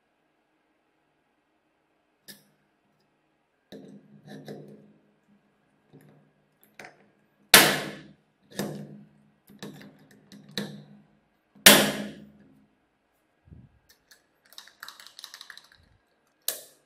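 Hand rivet tool setting pop rivets through a brass hinge: a series of squeezes of the handles, with two loud sharp snaps as the rivet mandrels break off. Light metallic clicks and rattles come near the end.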